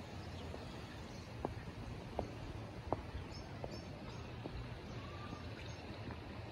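Outdoor ambience: a steady low rumble, with about five short, sharp ticks or chirps spaced under a second apart near the middle.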